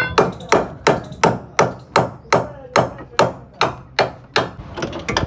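A hammer striking steadily, about a dozen sharp blows at nearly three a second, each with a short ring, then a few lighter taps near the end.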